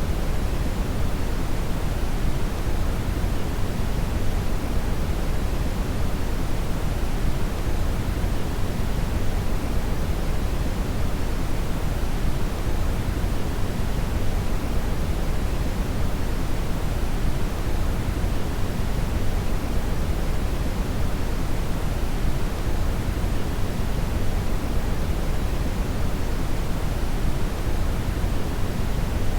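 Steady brown (red) noise: a deep, even hiss with most of its weight in the low end, unchanging throughout.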